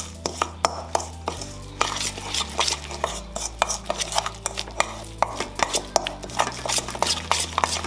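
A utensil clinking and scraping against a bowl as a yogurt, garlic and spice marinade is stirred. It gives many quick, irregular clicks, several a second.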